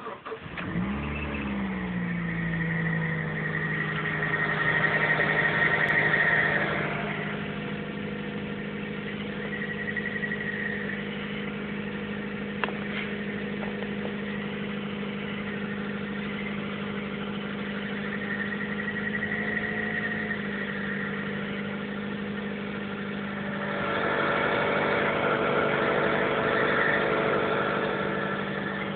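A Mazda 3 mk1 engine starting from cold and settling into a steady idle, with an odd higher-pitched noise over it that swells and fades several times. The owner links the noise to the clutch, since pressing and releasing the clutch pedal changes it.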